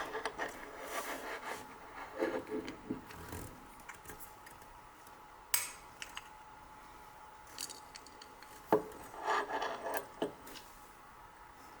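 Mechanical keyboard switches and an aluminium switch opener being handled: scattered light clicks and scraping of small hard parts, with two sharper clicks about halfway through and about three quarters through.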